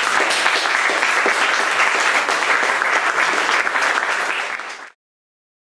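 Audience applauding with many hands clapping, cut off suddenly about five seconds in.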